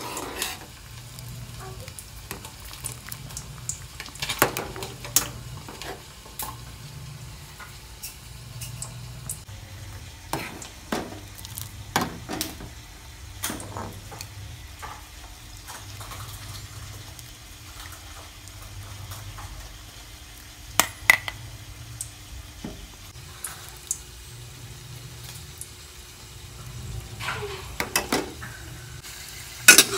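A metal ladle stirring thick rice porridge in a metal pot, scraping and clinking against the pot now and then, with a few louder clinks about two-thirds through and near the end.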